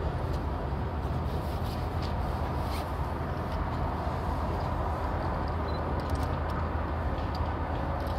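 Steady, even rumble of expressway traffic with a strong low hum.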